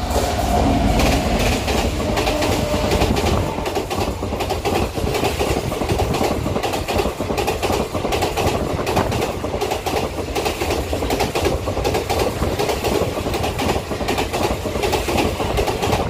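Express passenger train hauled by an electric locomotive running through a station at speed: a heavy low rumble as the locomotive passes in the first few seconds, then a continuous rhythmic clickety-clack of coach wheels over the rail joints as the coaches go by.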